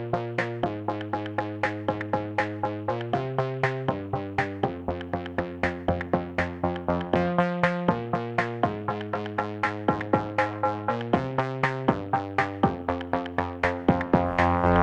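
Background music: electronic track with a steady, even beat over sustained synthesizer chords that change every second or two.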